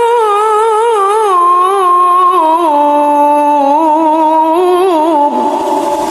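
A man reciting the Qur'an in the melodic tilawah style. He holds a long phrase with quick ornamental turns and wavers in pitch, stepping gradually lower, and near the end drops to a lower, rougher note as the phrase closes.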